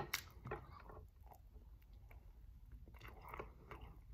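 Faint close-up chewing of a soft bread roll filled with buffalo chicken and melted cheese: scattered small mouth clicks, with a short flurry about three seconds in.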